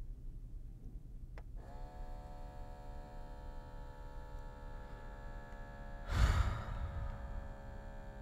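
A short click, then a steady electric hum with many overtones sets in about one and a half seconds in and holds. A person gives a loud sigh about six seconds in.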